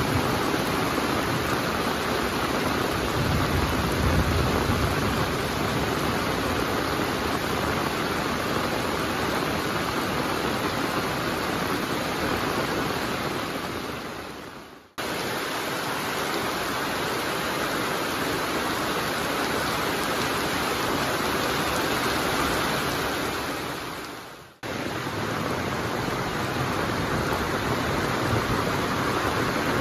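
Heavy monsoon rain pouring down steadily, a dense even hiss. The sound fades out and cuts back in abruptly twice, about halfway through and again near the end.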